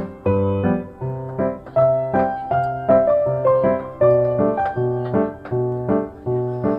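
Background piano music: a steady, gently rhythmic piano piece with a repeating bass line under a simple melody.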